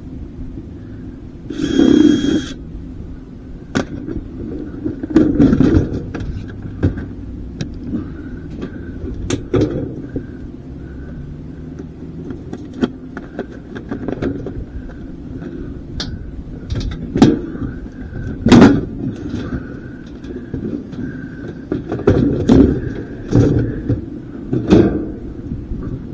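Clanks, knocks and rattles of metal parts being handled and worked loose, with a short high-pitched metal squeal about two seconds in.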